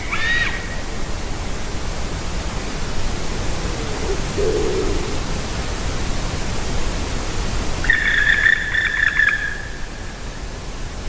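Bird calls over a steady rushing background. A run of short arched calls ends just after the start, a brief low call comes about four and a half seconds in, and one long, steady call lasting about a second and a half comes near eight seconds in.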